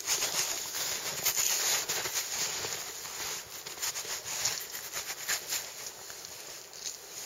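Irregular rustling and short scrapes of a hunting knife cutting along a deer's hide while it is field-dressed, over a steady hiss; it grows a little quieter toward the end.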